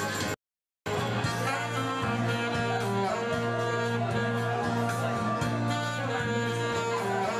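Saxophone playing a melody over an accompaniment with a steady held low bass note. The whole sound drops out for about half a second near the start.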